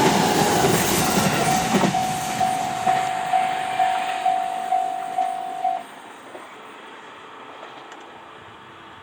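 E501 series electric train passing over the rails, its running noise fading away over the first two or three seconds, while a level-crossing alarm rings about two dings a second and stops about six seconds in as the crossing clears.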